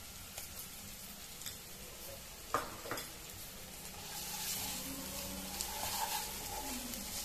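Chopped onions and green chillies sizzling in oil in a non-stick kadai. A wooden spatula knocks twice against the pan about two and a half seconds in, then stirs and scrapes through the onions, and the sizzle grows louder.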